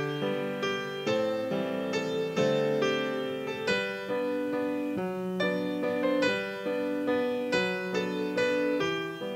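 Slow, gentle piano music, with notes struck about every half second and left to ring.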